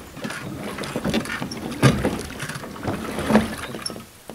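Water splashing as the kayak's oscillating hydrofoil blade swishes back and forth at the surface, in uneven strokes every second or so, the loudest about two seconds in and again near three and a half.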